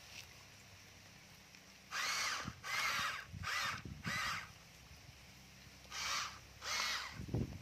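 Crow cawing: four harsh caws in quick succession about two seconds in, then two more near the end.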